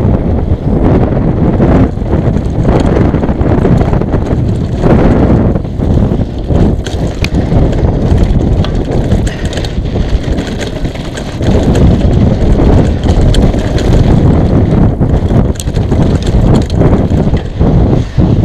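Mountain bike ridden down a dirt trail: wind buffeting the action camera's microphone over a steady rumble of tyres on the ground, with frequent clicks and clatters of the bike over rough terrain.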